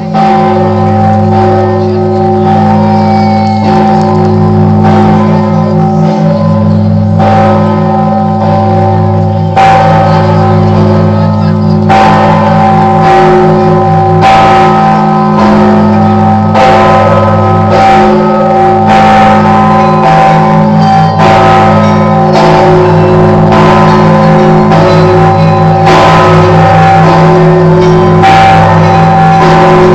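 Orthodox church bells ringing together, the 7,150 kg great bell among them. Strokes come every second or two over a fast, even pulse of bells, with their tones ringing on and overlapping throughout.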